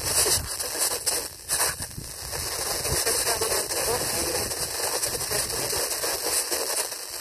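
FM radio receiver tuned to a weak, distant station: steady hiss and crackle of noisy reception, with faint programme audio buried beneath it and a short drop in level between one and two seconds in.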